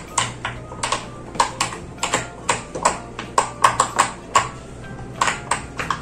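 Silicone pop-it fidget toy bubbles being pressed in by fingers in quick succession: an irregular run of short soft pops, several a second.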